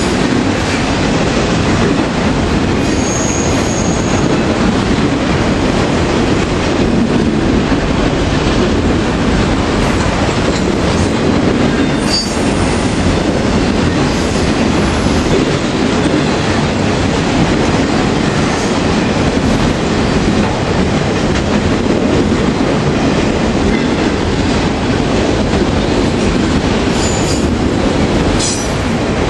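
Autorack freight cars rolling past close by: a steady heavy rumble of steel wheels on rail, with clacking over the rail joints. Brief high-pitched wheel squeals come about three seconds in and again near the end.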